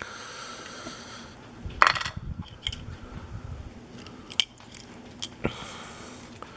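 A few sharp small metallic clicks and taps, the loudest a short scrape-click about two seconds in, from the parts of a picked pin tumbler lock (core, pins and shim) being handled.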